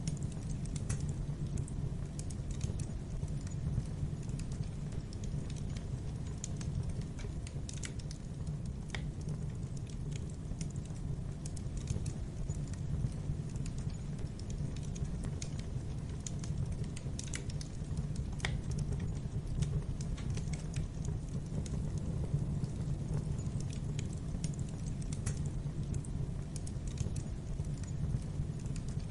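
Fireplace fire crackling: irregular sharp snaps and pops over a steady low rumble of the flames.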